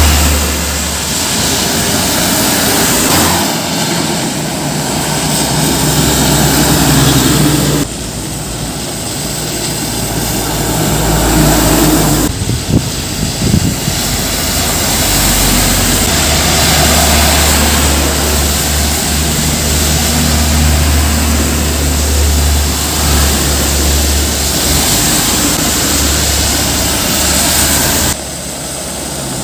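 Heavy diesel trucks and buses running past on a road: a steady, loud engine drone with tyre and road noise. The sound changes abruptly three times.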